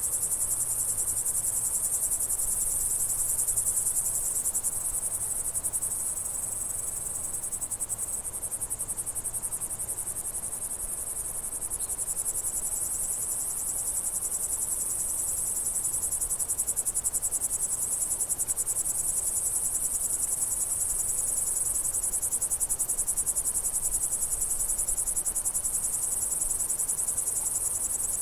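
Crickets chirping in a dense, continuous high-pitched chorus with a fast, even pulse.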